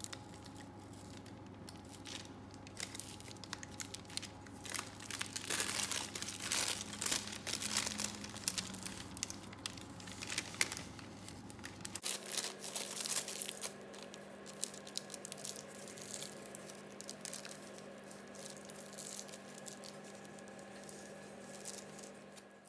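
Disposable plastic piping bag crinkling as it is squeezed and twisted to pipe choux pastry dough, with irregular crackles throughout.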